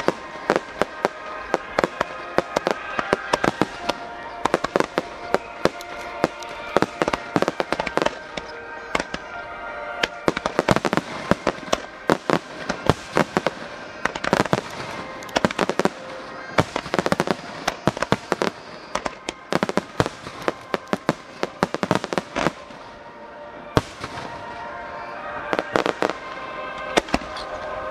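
Aerial fireworks shells bursting in rapid, irregular succession, many sharp bangs close together, with music playing steadily underneath.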